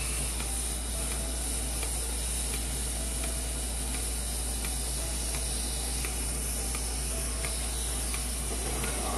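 Gas torch flame hissing steadily, with a few faint ticks and crackles now and then.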